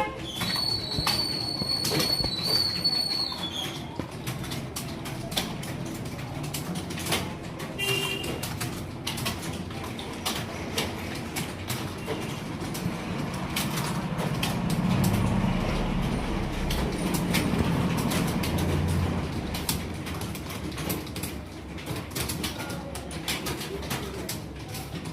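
Computer keyboard keys clicking in an irregular typing rhythm. A steady high tone sounds for about three seconds near the start, and a low rumble swells and fades in the middle.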